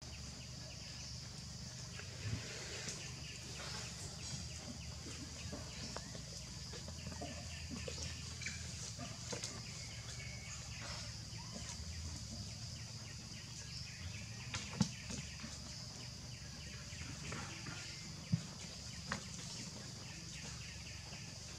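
Faint outdoor ambience: a steady high-pitched hiss over a low rumble, with scattered faint bird calls. A few sharp clicks or knocks, the loudest about 15 and 18 seconds in.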